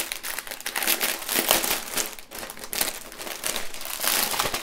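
Clear plastic bag crinkling and rustling as hands open it and work a bundle of plastic drill packets free: continuous crackling with many quick crisp ticks.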